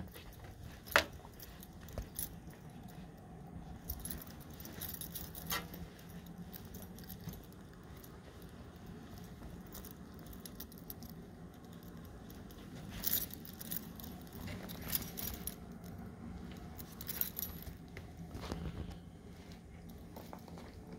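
Keys jangling in bursts as a person walks across a carpeted room. There is one sharp click about a second in.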